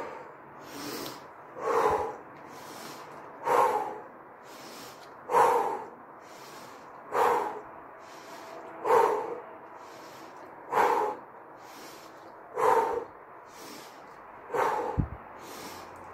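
A woman taking deep breaths in and out by turns in a guided breathing exercise, a loud breath about every two seconds.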